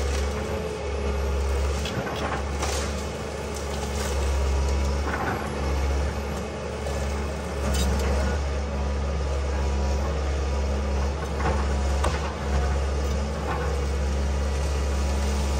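Tracked excavator's diesel engine running steadily under load, with occasional sharp knocks and clatter as the bucket works rock, earth and felled trees.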